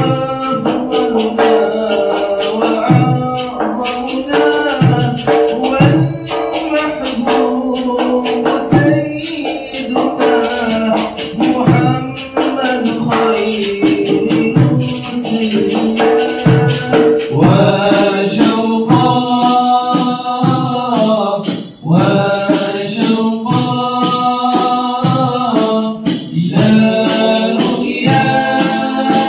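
Shami-style Islamic devotional chanting (inshad): a male solo voice sings long ornamented notes over hand-played snare drum and tambourine. About two-thirds of the way in, several male voices join in unison.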